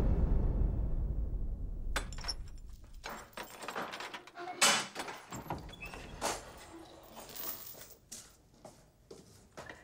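A deep boom fades away over the first two seconds, then a run of knocks and clanks follows, the loudest about four and a half seconds in, as a cell door is opened.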